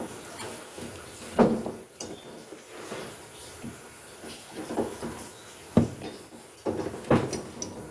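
A series of knocks and clatters from parts being handled by hand, the loudest about a second and a half in and again near six and seven seconds.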